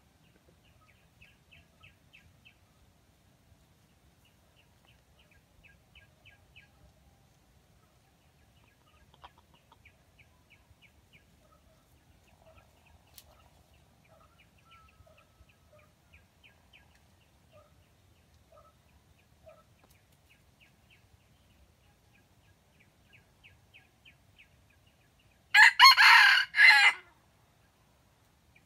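Red junglefowl rooster crowing once near the end, a short loud crow broken into a few parts. Before it come faint, soft clucking notes and repeated trains of rapid, high-pitched chirps.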